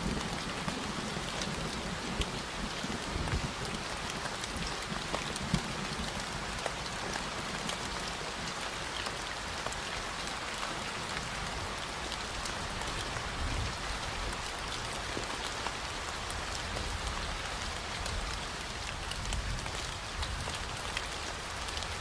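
Steady rain falling, a dense even patter of many small drop ticks.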